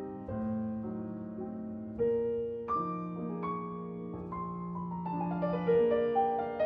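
Background piano music: a melody of held notes over a sustained bass line.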